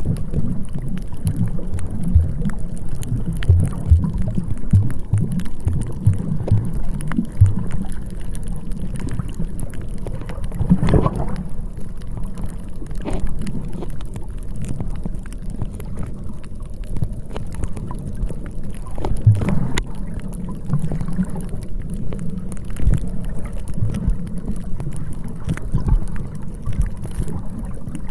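Sea wind buffeting the microphone: a continuous low rumble that swells and drops with the gusts, with a few brief knocks.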